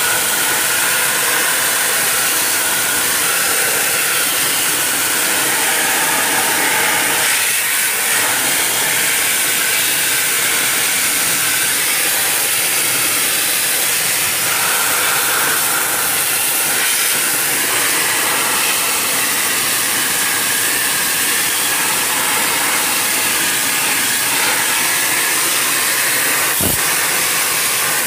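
Pressure washer jet spraying water onto the fins of a ceiling-cassette air conditioner's evaporator coil, a loud steady hiss of spray, while the moss-clogged coil is washed. One brief knock near the end.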